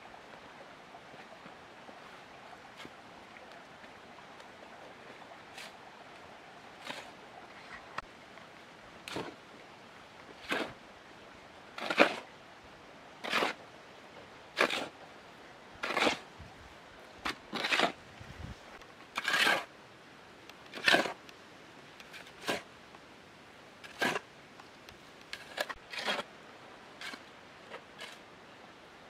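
Metal shovel scraping and scooping into a pile of sand and cement on hard ground, a short gritty scrape about every second and a half, starting several seconds in.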